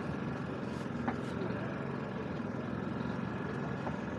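Steady low motor hum, like an idling engine, with a couple of faint ticks.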